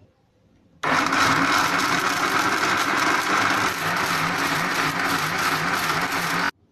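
Electric blender running steadily, pureeing falsa berries with a little water. It starts abruptly about a second in and cuts off suddenly just before the end.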